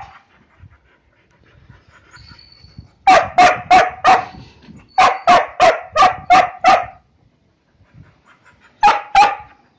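A dog barking in quick runs: four barks, then six, then two more near the end.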